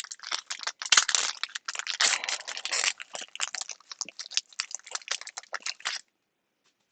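Trading card pack wrapper crinkling and tearing as it is handled and opened: dense crackly rustling that stops abruptly about six seconds in.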